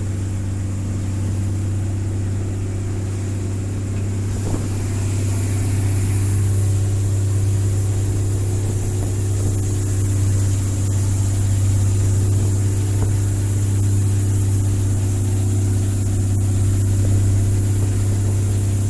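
Passenger boat's engine running steadily, a constant low drone.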